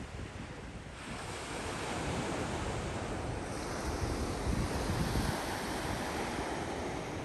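Sea surf washing onto the beach, with wind buffeting the microphone; the wash swells about a second in and stays steady.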